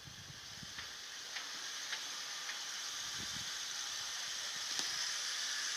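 Jeep Wrangler crawling slowly over a rocky gravel trail: a steady hiss of tyres on gravel and loose stone that grows louder as it nears, with a few scattered clicks of stones.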